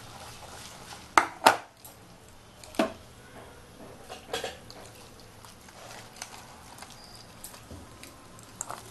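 Batter of besan and flour being mixed by hand in an enamel bowl, with a few sharp knocks against the bowl. The two loudest come close together about a second in, and another follows near three seconds.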